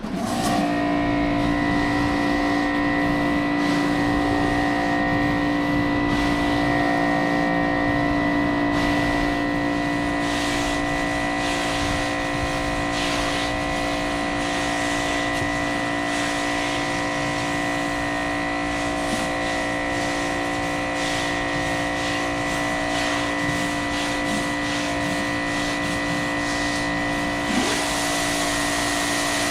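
Ryobi 2000 psi electric pressure washer starting up and running steadily with a whining motor and pump tone, feeding a 12-inch spinning surface cleaner, with water spray hissing on concrete.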